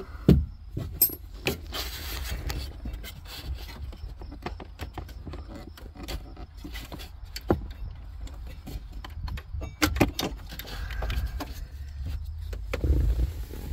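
Scattered clicks, knocks and rubbing of hard plastic as a Ford Expedition's temperature blend door actuator is worked loose by hand and pulled out from behind the dashboard, over a low rumble.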